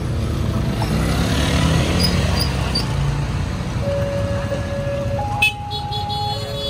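Motorbike and car engines passing close by at a railway level crossing. The crossing's electronic warning tones sound in steady, changing pitches under them, clearest in the second half, with a sharp click about five and a half seconds in.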